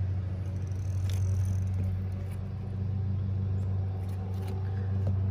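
Boat motor running with a steady low hum.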